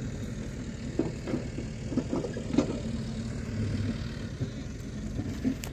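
An engine running steadily with a low hum, with a few short knocks scattered through.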